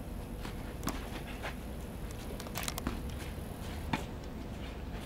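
Tennis balls being hit and bouncing on a clay court: a few sharp, short knocks, one about a second in, three close together in the middle and one near the end, over a steady low rumble.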